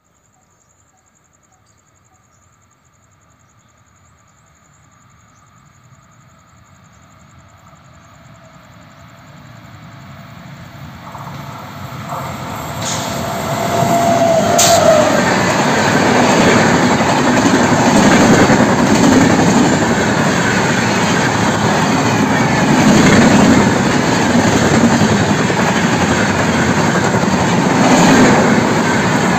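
Indian Railways WAP-7 electric locomotive hauling red LHB passenger coaches, approaching from a distance and growing steadily louder over about fourteen seconds. Two sharp clanks come as the locomotive draws level, then the coaches run past with a steady loud rumble and clatter of wheels on the rails.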